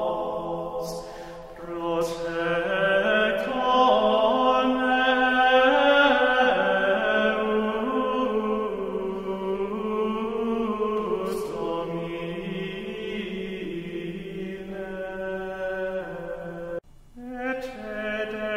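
Slow sacred chant of singing voices holding long, sustained notes that shift pitch slowly, with a short break near the end before the singing resumes.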